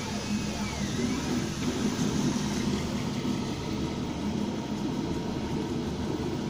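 MINGDA large-format FDM 3D printer running a print: fans whirring steadily, and the stepper motors whine in rising and falling arcs as the print head moves during the first second.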